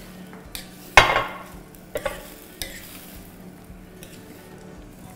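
A spatula stirring vegetables in a stainless steel frying pan of boiling sweet-and-sour sauce, over a low steady sizzle. It clanks against the pan loudly about a second in and more lightly twice around the two-second mark.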